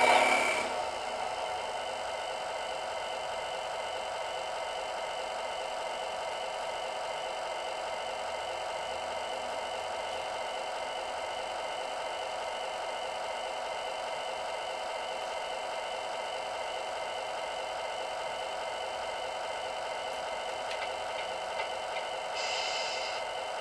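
Tractor-truck sound-effects module playing a simulated diesel engine idle through a small speaker, steady and unchanging after a louder start-up burst at the very beginning. A brief brighter hiss comes in near the end.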